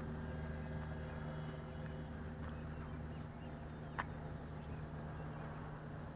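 Parkzone Spitfire RC plane's electric motor and propeller running with a steady, even hum. A few short high chirps sound over it, and a sharp click comes about four seconds in.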